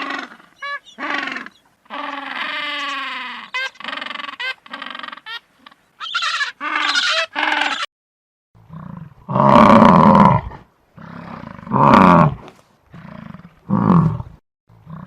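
Animal calls: first a quick run of short pitched cries and one longer wavering cry, then, after a brief gap, four or five loud harsh calls about a second each.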